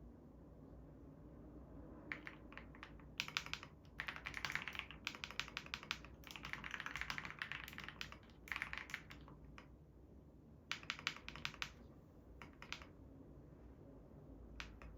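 Typing on a COX CF75 keyboard with orange switches: quick runs of key clicks in several bursts separated by short pauses, starting about two seconds in and stopping near the end.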